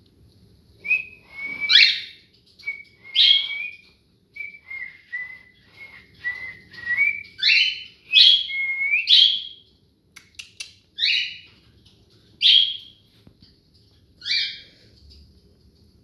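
Cockatiel calling: short whistled notes broken by about eight loud, harsh chirps that sweep up in pitch, coming every second or two. A few sharp clicks sound about ten seconds in.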